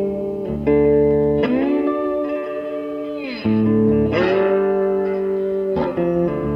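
Background music led by an electric guitar, with held notes that bend up in pitch about a second and a half in and again around four seconds in.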